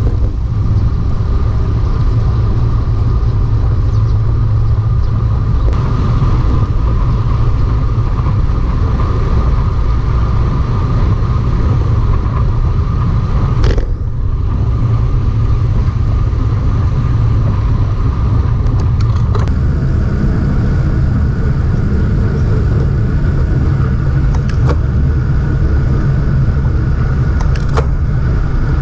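Steady wind rumble and road noise on the microphone of a camera carried on a moving road bicycle, with a steady hum over it and a single sharp knock about halfway through.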